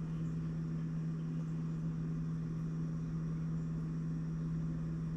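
A steady, constant-pitched low hum, like a running motor or appliance, with nothing else standing out.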